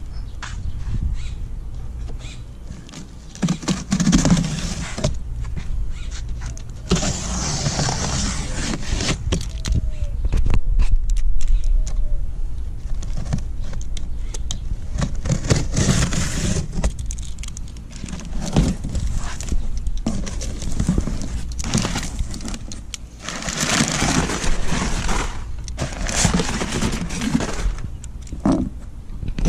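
Cardboard shipping box being cut open with a utility knife and its flaps pulled back, with crinkling of the brown packing paper inside. The scraping and rustling come in several separate bursts with pauses between.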